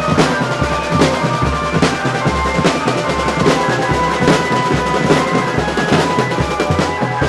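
Marching drum band playing: bass drums beat a steady pulse a little faster than once a second, with snare and tenor drums rattling densely between the beats and a high held melody line over the drums.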